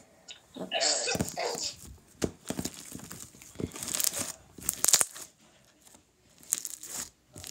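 Sticky slime being squished and stretched in the hands, giving irregular crackling, popping and sticky clicking sounds.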